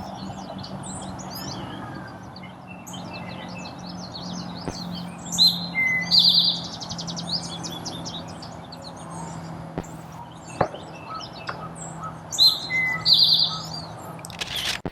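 Eastern towhee singing its 'drink-your-tea' song, two short notes followed by a buzzy trill, twice. Other small birds chirp in the background, over a faint steady low hum.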